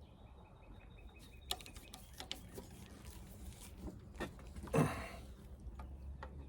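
Quiet, scattered small clicks and taps of bolts being fitted into a large circuit breaker's housing by hand, with one louder clunk a little under five seconds in.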